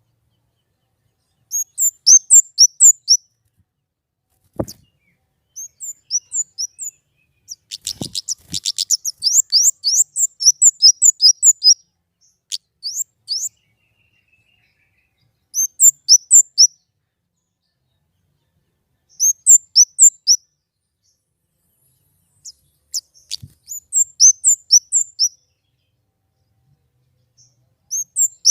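A small songbird repeating short phrases of quick, high chirps, each note hooking downward, about a second per phrase with pauses of a few seconds between; the busiest, most rapid run comes around eight seconds in.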